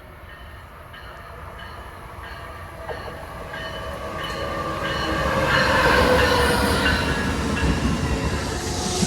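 A train approaching, its rumble growing steadily louder to a peak about six seconds in. A faint high ding repeats about twice a second during the approach.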